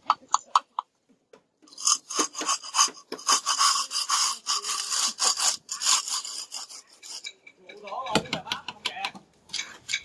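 A mason's hand tool scraping wet cement plaster across a wall in quick, repeated rasping strokes. There are a few sharp taps in the first second. The scraping starts about two seconds in, stops briefly around eight seconds, and starts again near the end.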